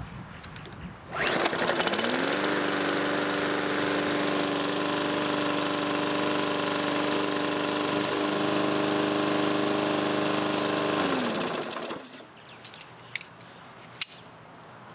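Walk-behind lawn mower's small four-stroke engine catching on the pull-cord about a second in, quickly climbing to speed and running steadily at an even pitch, then winding down and stopping near the end. The engine is running again now that its soap-fouled spark plug has been cleaned.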